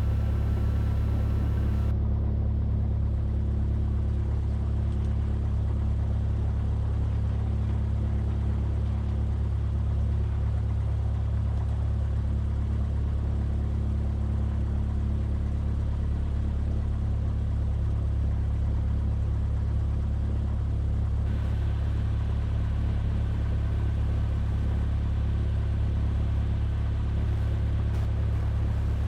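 Cessna 172F's piston engine and propeller running in a steady low drone, heard from inside the aircraft, with no change in power.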